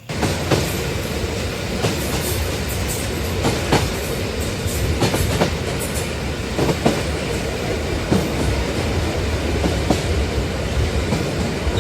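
Model train locomotive running along its track: a steady rumble of motor and wheels with frequent irregular clicks.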